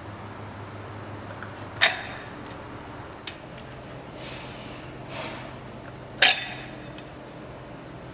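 Metal wheel hubcaps on a Bentley snapping off under a pry tool: two sharp metallic clinks with a short ring, about four seconds apart, and a smaller click between them, over a low steady hum.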